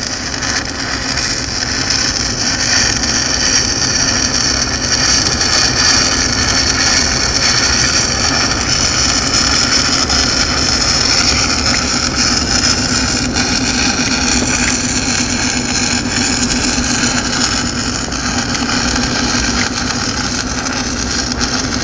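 Steady, loud machinery noise from refinery furnace equipment: a high continuous whistle over a low hum, with no breaks.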